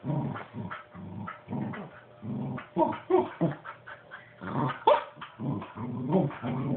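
Puppy vocalizing in a quick string of short, low grumbles broken by a few higher yips, the sharpest about five seconds in: the dog 'talking' to ask for a stuffed toy that sits out of its reach.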